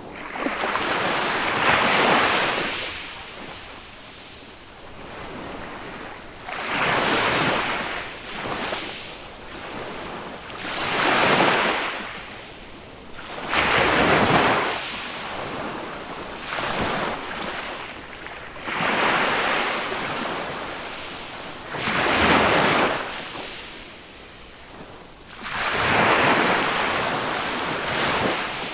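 Small waves of a calm sea breaking on a beach one after another, about every four seconds. Each break swells into a loud rush of surf and fades back into a softer wash.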